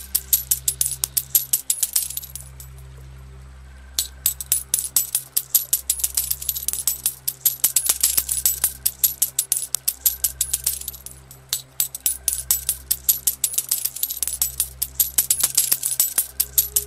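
Coins dropping and clinking in a rapid, irregular stream. The clinking stops about two seconds in and starts again about two seconds later, over soft background music of low sustained tones.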